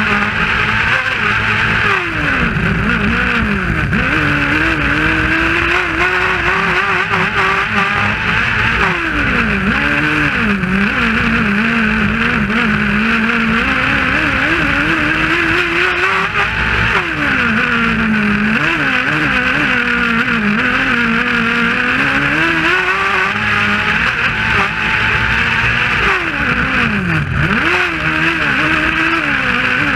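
Kart cross's 600 cc motorcycle engine at race pace, heard from on board. The revs climb through the gears, drop sharply off-throttle into corners several times, then climb again, over a constant rushing noise.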